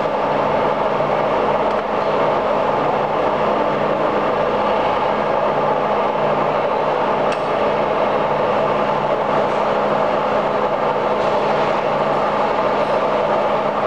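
1972 Tarnow 22 x 105 engine lathe running under power: a steady mechanical hum from its 10 HP main motor and headstock, with a few faint clicks.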